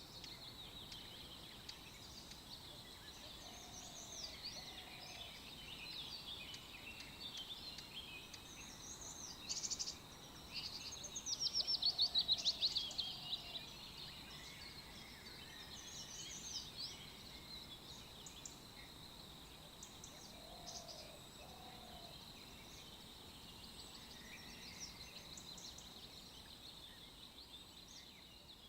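Several birds chirping and singing, with a rapid trill the loudest part about eleven to thirteen seconds in, and a low two-note call repeated a few times. A faint steady high-pitched tone runs underneath.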